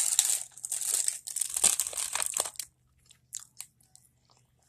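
Close-up chewing of a bite of peanut butter cupcake: dense crackly mouth noise for about two and a half seconds, then a few faint clicks.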